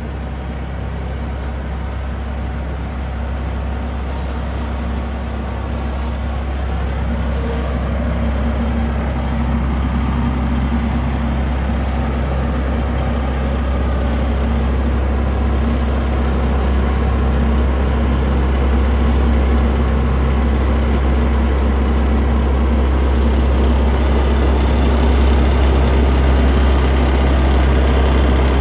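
Fortschritt E514 combine harvester's diesel engine running steadily with a deep drone, growing gradually louder.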